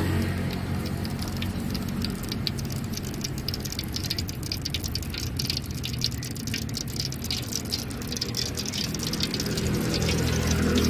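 Hot cooking oil sizzling and crackling in a wok as a skewer of beaten egg deep-fries into telur gulung, with a low steady hum underneath.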